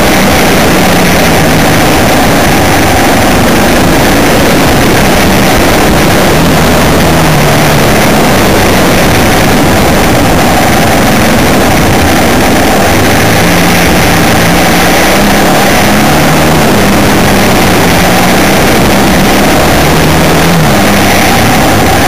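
Onboard sound of a vehicle driving on a gravel mountain track: the engine runs with its pitch rising and falling as the revs change, under a loud, steady rushing noise that overloads the recording.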